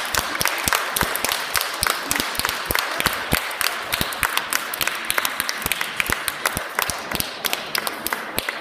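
Audience applauding: dense, irregular hand claps, with sharper, louder claps from a spectator close to the microphone. The applause eases off near the end.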